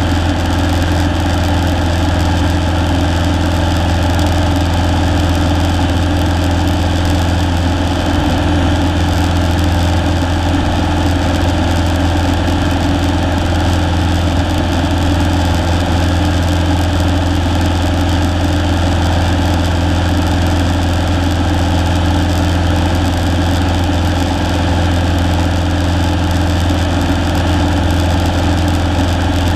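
A single-engine Cessna's piston engine and propeller drone steadily, heard from inside the cockpit.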